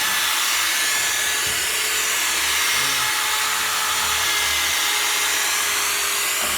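Power sander running steadily while wet-sanding a plastic headlight lens, a continuous whir with a steady whine.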